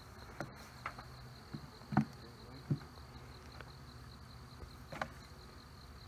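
Honeybees buzzing faintly around an open hive as a freshly captured swarm settles in, over a faint, quick, evenly pulsing high note. A few short light knocks sound through it, the loudest about two seconds in.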